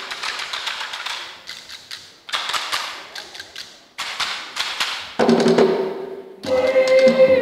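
Bamboo sticks beaten in rapid runs of wooden taps, in three bursts that each die away, the bamboo percussion of the Makassar ganrang bulo dance. About five seconds in a choir starts singing held notes, louder near the end.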